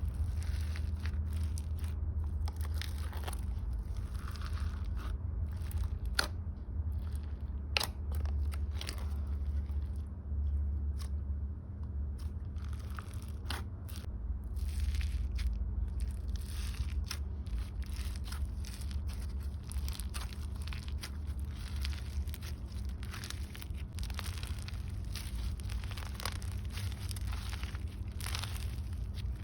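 Crunchy slime squished and kneaded by hand: irregular crunching and crackling with sharp bubble pops, a few louder snaps among them, over a steady low hum.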